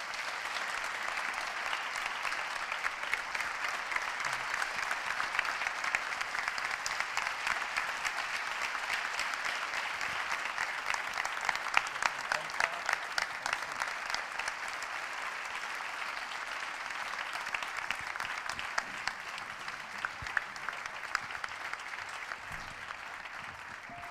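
A large theatre audience applauding, a sustained ovation that thins out a little near the end.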